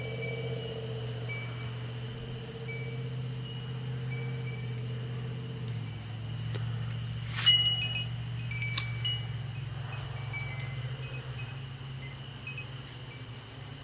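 Wind chimes ringing in the wind: scattered short high notes, with two louder strikes about seven and a half seconds in and a second later.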